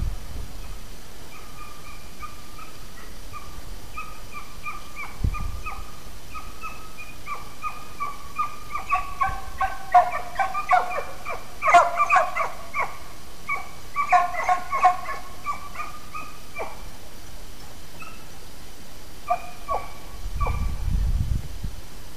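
Pack of hunting hounds baying on a hare's trail: repeated yelping voices from several dogs overlapping, thickening to a busy chorus in the middle and thinning out toward the end.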